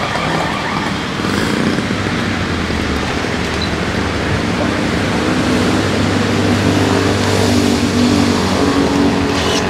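An engine running steadily, a continuous low hum with a noisy wash over it that grows a little fuller in the second half.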